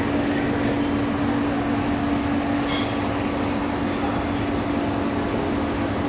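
Steady machinery hum and hiss of shop room noise, one unchanging low hum note under a constant rushing noise. A faint short high ring about halfway through.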